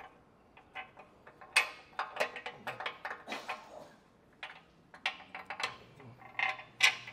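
Irregular metallic clicks and clinks as a steel nut plate is fed up inside a vehicle frame rail and a bolt is lined up with its threads by hand.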